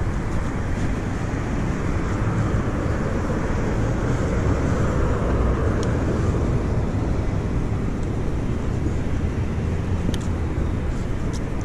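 Steady wind rush on the microphone and road noise while cycling, with traffic noise that swells and fades around the middle. A few faint clicks.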